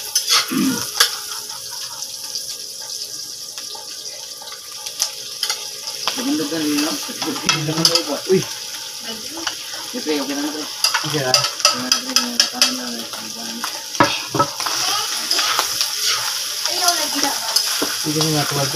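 Pieces of duck meat sizzling as they are stir-fried in a metal wok, with a spatula scraping and clicking against the pan throughout.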